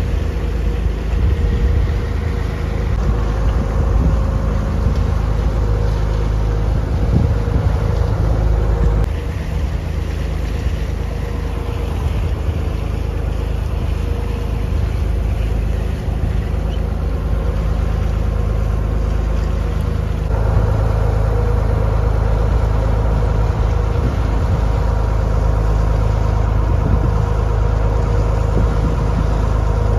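Boat engine running steadily aboard a cruise boat: a constant hum over a low rumble. The sound changes abruptly twice, about a third and two thirds of the way through.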